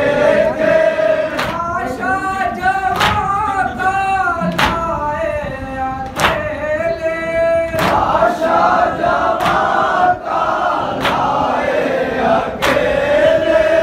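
A group of men chanting a noha (Muharram mourning lament) in unison, with sharp rhythmic slaps of matam chest-beating about every second and a half.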